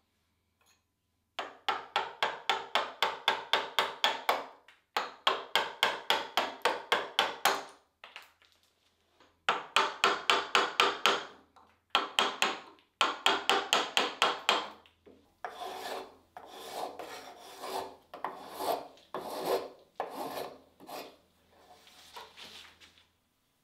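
A hand tool working hardwood in bursts of quick, even strokes, about five a second. From about 15 seconds in the strokes become slower and more uneven, with pauses between runs.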